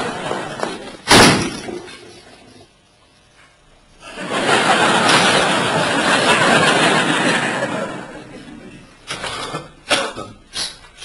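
A door slams hard about a second in, with a sharp, loud bang. After a short pause comes about four seconds of loud, even, rushing noise that fades away, then a few sharp knocks near the end.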